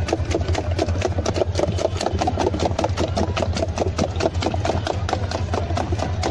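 A small engine idling, with a rapid, uneven clatter over a steady low hum.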